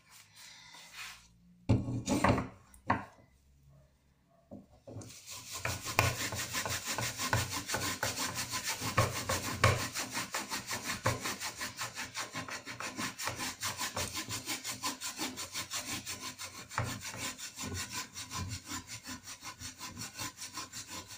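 Hand scrubbing the greasy outside of a metal pan with toothpaste, in fast even back-and-forth strokes of about three to four a second, starting about five seconds in after a few knocks of the pan being handled.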